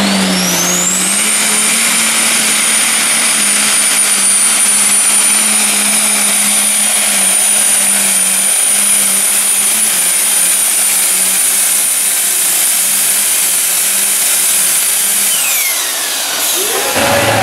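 Super stock pulling tractor (Case IH Magnum) at full throttle under load from the sled. The engine runs flat out with a loud high turbocharger whine that spools up in the first second and holds steady. Near the end the whine winds down as the throttle comes off, and the engine drops to a low idle.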